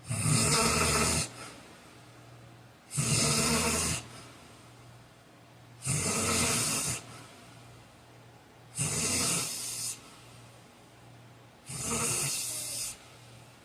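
A heavy-set man snoring loudly in a steady rhythm: five snores about three seconds apart, each lasting a little over a second. A faint steady hum runs underneath.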